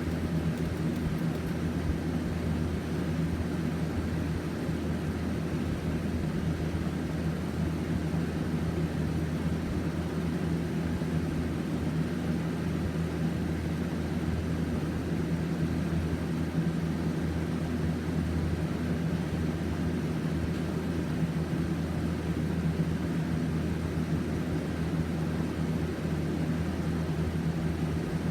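Steady low mechanical hum with a faint whir, unchanging throughout: room background noise.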